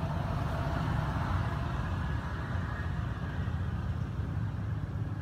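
Steady low background rumble with an even hiss above it, unbroken and without distinct events.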